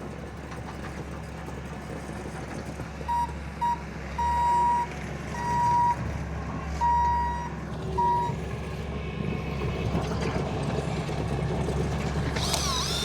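Construction machine's backup alarm beeping in about six beeps of uneven length over a steady engine hum as it reverses. Near the end a short wavering squeal sounds.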